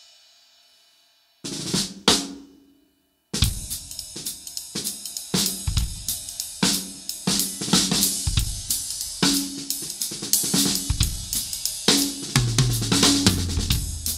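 Zildjian K 20-inch flat top ride cymbal's ring dying away, then two strikes about a second and a half in. From about three seconds in, a full drum kit plays a steady groove with snare, bass drum and cymbals.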